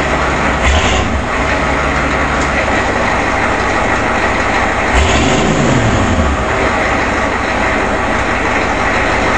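A 1985 Ford E350's 6.9L International diesel V8 idles with a diesel clatter, and is revved once about five seconds in, rising and falling back to idle. The owner takes its extra clatter and blue smoke for retarded injection timing.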